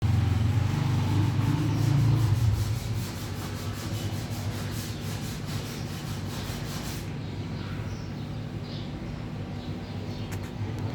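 Sanding on a car's painted body to take out scratches: a rhythmic scratchy rubbing, about four strokes a second, that stops about seven seconds in. A low hum is loudest in the first couple of seconds.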